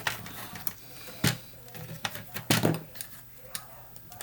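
Clicks and knocks of the plastic case and parts of a TRS-80 Model 100 portable computer being handled as its insides are worked loose, with two sharper knocks about a second in and again past halfway.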